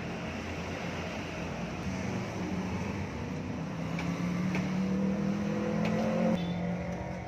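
Aprilia Shiver 900's 90-degree V-twin engine on its stock exhaust, running steadily, then revs climbing gradually for a few seconds before dropping suddenly back down about six seconds in.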